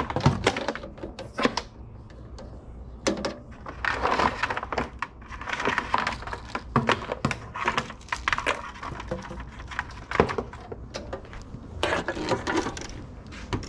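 Irregular clicks, knocks and clatter.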